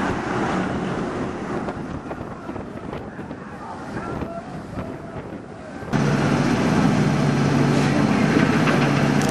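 Arrow 4th Dimension roller coaster train rushing past on its track, a rumbling noise with wind on the microphone that fades as it moves away. About six seconds in it cuts to a louder, steady low mechanical hum.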